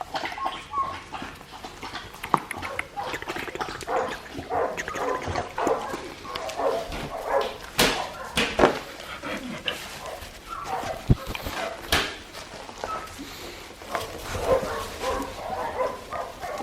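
A litter of four-week-old Australian Shepherd puppies yipping, whimpering and barking in many short, overlapping calls, with a few sharp knocks about eight and twelve seconds in.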